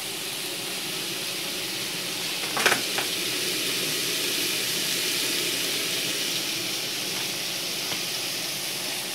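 Sliced onions sizzling in butter in a large aluminium pot: a steady frying hiss, with one brief clatter a little under three seconds in.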